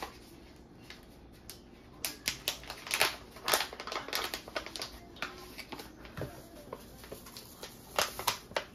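Paper bag of cornbread mix crinkling and rustling as it is handled and opened, a run of sharp crackles starting about two seconds in, then more crackles near the end as the dry mix is tipped into the mixing bowl.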